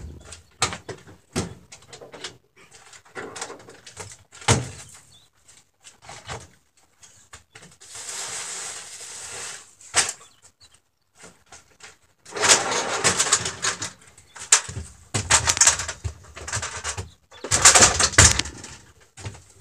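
Tools and gear being unloaded from a pickup truck bed and carried in: scattered knocks and clicks, then three louder bursts of rustling and scraping in the second half.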